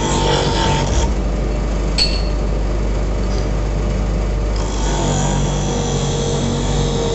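Brake shoe lining-removal machine running steadily with a low hum, and a single sharp metallic clink about two seconds in. Electronic background music plays over the first second and again from about four and a half seconds on.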